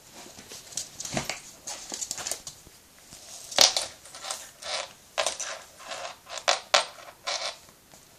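Border terrier puppy playing with a plush toy on a hard floor: an irregular run of short crinkling, scuffling and clicking noises, the loudest about three and a half seconds in.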